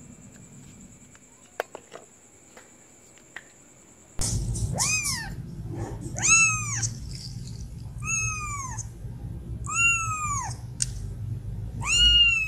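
A few faint ticks at first, then about four seconds in a kitten starts meowing: five meows about two seconds apart, each rising and then falling in pitch.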